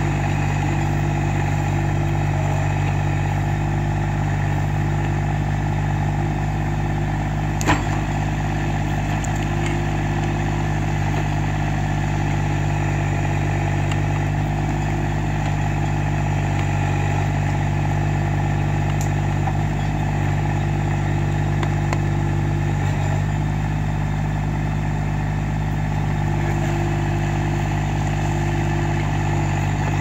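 Massey Ferguson GC1710 sub-compact tractor's three-cylinder diesel engine running steadily while its backhoe digs out a tree stump. A higher hum comes and goes a few times, and there is a single sharp knock about eight seconds in.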